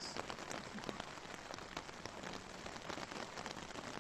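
Steady rain falling: an even hiss with many separate small drops pattering throughout.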